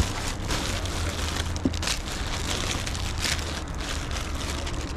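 Clear plastic bags rustling and crinkling in irregular bursts as hands handle and sort them, over a low steady rumble.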